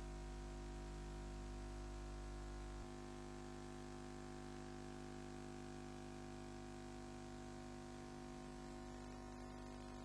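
Faint steady hum with hiss and no distinct events; the deepest part of the rumble drops away about three seconds in.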